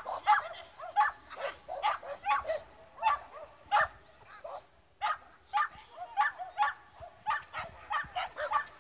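A pumi barking over and over in short, high yaps, about two or three a second, while running an agility course.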